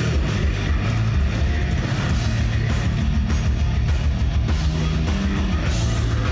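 Heavy metal band playing live: distorted electric guitars riffing over a drum kit, loud and steady.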